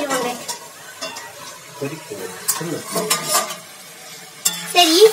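Metal spatula clinking and scraping against an iron kadai and its steel lid as the lid is lifted and chopped chicken is stirred, with a light sizzle of frying.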